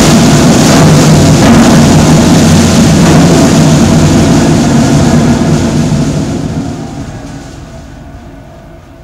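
Percussion ensemble of drums, timpani and gong playing a loud, dense rumbling roll that holds for about five seconds and then dies away over the last few seconds.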